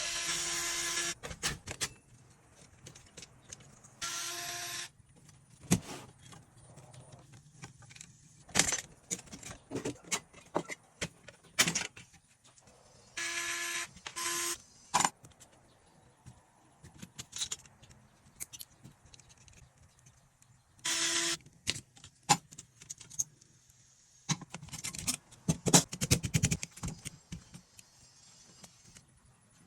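Scattered sharp clicks and metallic clinks of small typewriter parts and tools being handled. Several times a steady whirring noise runs for about a second and stops, likely a small power tool or a blast of air.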